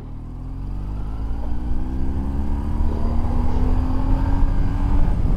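BMW R1150GS's air-cooled boxer twin accelerating hard, its engine note rising steadily in pitch and getting louder over about five seconds.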